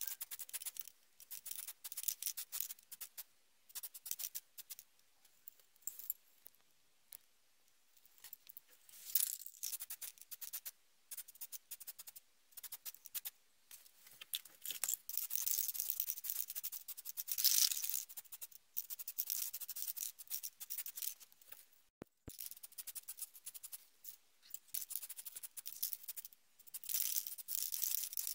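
Aerosol spray-paint can hissing in short bursts and longer passes, mixed with rattling.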